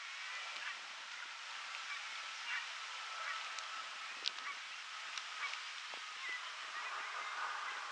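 Lakeshore ambience: a steady soft hiss with faint distant bird calls. A few sharp ticks stand out, the loudest about four seconds in.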